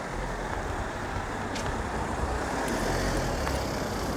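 A motor vehicle's engine running close by in the street, a steady rumble that grows a little louder about three seconds in and then eases.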